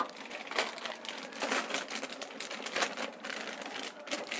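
Thin polythene packaging crinkling and rustling in irregular crackles as a new speedometer cable is pulled out of its packet by hand.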